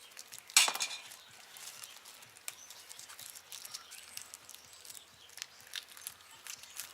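Small clicks and rattles of hands handling a bicycle wheel's tyre, tube and tools, with one louder clatter about half a second in.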